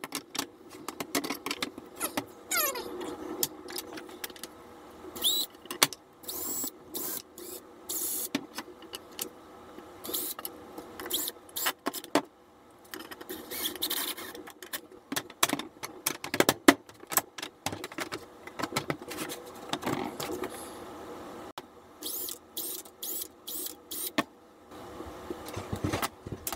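Cordless drill driving screws into plywood in many short bursts, mixed with knocks and clatter of plywood panels and small wooden parts being handled.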